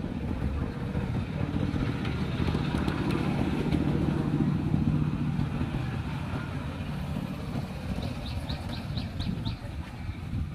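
A low, steady engine hum that grows louder toward the middle and then eases off. About eight seconds in, a quick run of about six short, high chirps.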